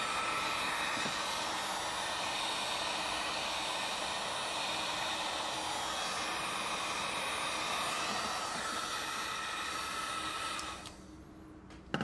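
Heat gun blowing hot air steadily while shrinking heat-shrink tubing over a soldered wire joint; it cuts off about eleven seconds in. A single knock near the end.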